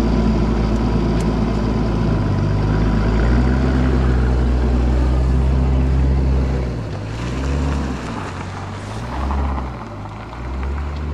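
An old Ford car's engine running steadily, then its note dips and rises three times in the second half as the car is driven off.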